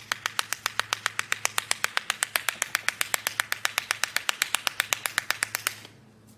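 Rapid, evenly spaced clicking, about eight clicks a second, over a faint low hum; the clicking stops abruptly shortly before the end.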